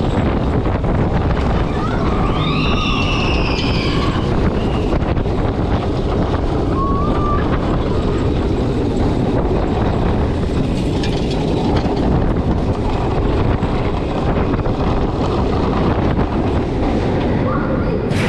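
Intamin inverted roller coaster train running through the course: a steady rumble of the wheels on the steel track and wind buffeting the microphone. A rider's short shout rises over it a couple of seconds in.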